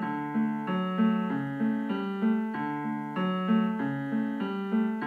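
Piano left hand playing a steady, repeating accompaniment pattern in the low-middle register, a little over two evenly spaced notes a second.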